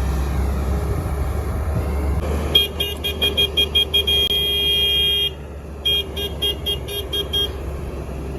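A whistle blown in quick short blasts, then one long blast, then more short blasts, calling a truck to reverse into loading position. A diesel engine rumbles underneath.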